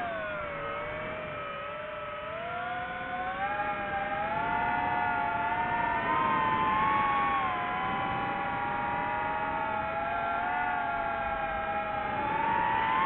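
DJI FPV drone's motors and propellers whining. The pitch drops over the first two seconds, then rises and falls with the throttle, climbing again near the end.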